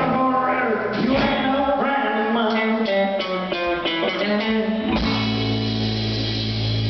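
Live rock band playing, with a singer, guitar and drums. About five seconds in, the band hits a chord that is held and rings on with a steady low bass note.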